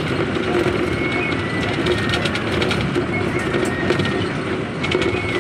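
Bus in motion heard from inside: a steady engine and road rumble with frequent rattling clicks from the body, and a few brief high squeaks.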